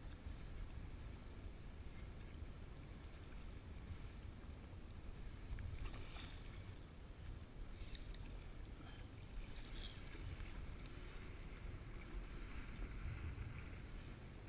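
Steady low rumble of wind on the microphone over water slapping at a fishing kayak's hull as it rides the chop. Two short, brighter sounds stand out about six and ten seconds in.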